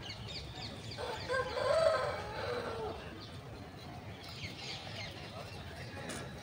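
A single long animal call about a second in, lasting about two seconds and rising then falling in pitch, over faint high chirps.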